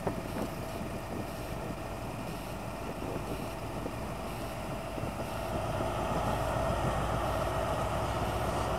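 Diesel engine of a Class 43 HST power car running as the train begins to pull away, with a steady whine over the engine note and the sound growing louder over the last few seconds as it powers up.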